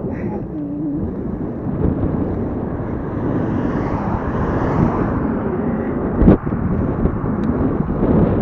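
Wind rushing over the microphone with tyre and road noise from a recumbent bike riding along an asphalt road, swelling as an oncoming car passes near the middle. A single sharp knock about six seconds in.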